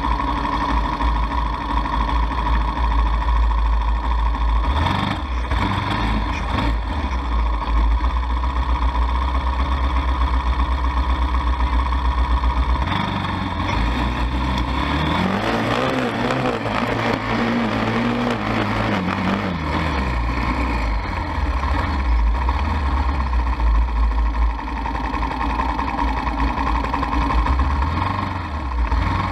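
ATV engine running steadily, revving up about halfway through and easing back down a few seconds later.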